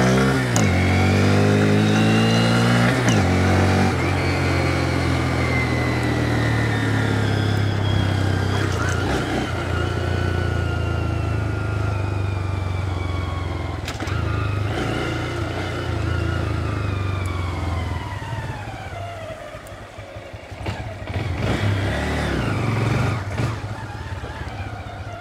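Honda Grom's small single-cylinder engine under way: the revs climb, drop at a gear change about three seconds in, then fall slowly as the bike slows, with a short rev up and back down near the end.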